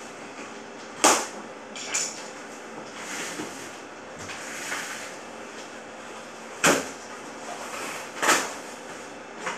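Cardboard packaging being handled on a tile floor: sharp knocks about a second in and twice near the end as the long cardboard box is bumped and moved, with cardboard scraping and rustling in between.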